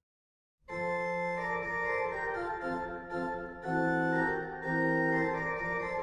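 Instrumental background music of slow, sustained chords, starting after a brief dead silence at the very beginning.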